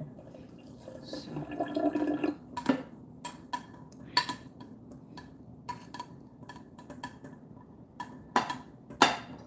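A frying pan of steamed broccoli clinking and knocking against the sink as it is tilted to drain off the cooking water, in scattered taps and clatters. The loudest knock comes near the end.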